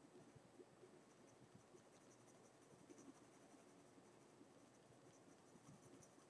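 Very faint scratching of a mechanical pencil's lead on paper, a run of short, light sketching strokes.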